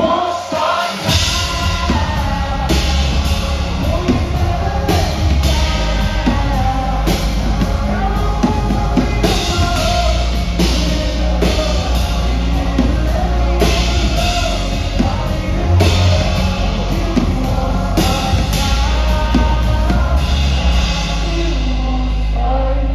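Band playing a loud rock-style instrumental stretch of the song: a drum kit with cymbals, heavy bass and guitars, with pitched lines that may include wordless singing.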